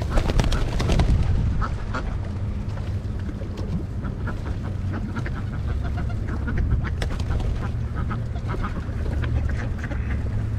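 Ducks quacking over and over, many short calls overlapping, over a steady low rumble.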